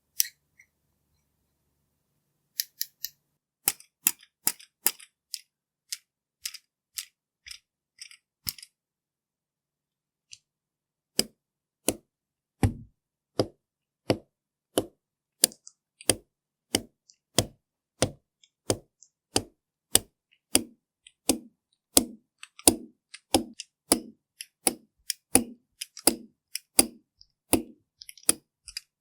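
Crisp ASMR tapping and clicking from makeup tools: scattered light clicks at first, then after a short pause a steady run of fuller taps about two a second.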